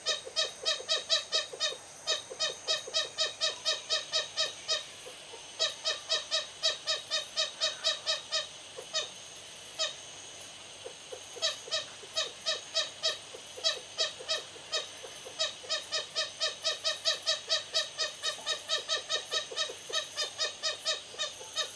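Two lesser bushbabies (Galago moholi) giving loud aggression calls at each other. The calls come in long rapid series at about four or five a second, with a short break about five seconds in and a longer break around the middle.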